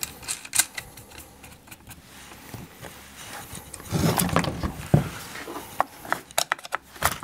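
Scattered metallic clicks and scrapes of hands and a tool working on a chainsaw's bar and chain while the chain is tensioned, with a louder clatter about four seconds in.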